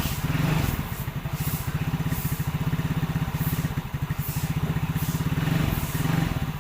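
Yamaha Soul GT scooter's single-cylinder four-stroke engine idling after a rebuild with a new cylinder block and piston, its speed rising slightly a couple of times. It runs smoothly.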